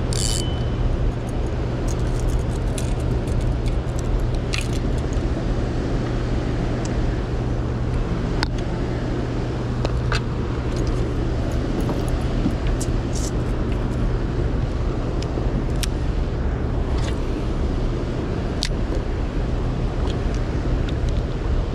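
Steady rushing rumble of water below a hydroelectric dam, with a constant low hum under it. Light clicks and taps come through now and then.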